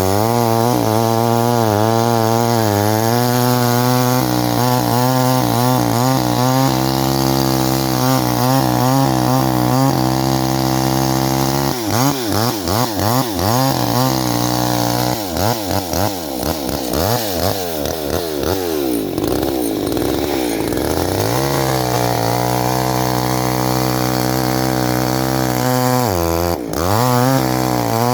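Chainsaw running at full throttle, cutting into a tree trunk, its engine pitch wavering under load. Near the end it drops briefly and picks back up.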